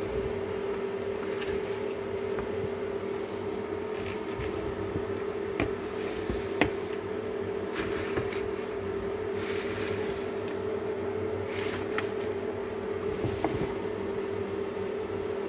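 A steady, even-pitched electrical hum, with scattered sharp ticks and brief crinkly rustles as a PAR sensor is handled and set down on the tent's reflective lining.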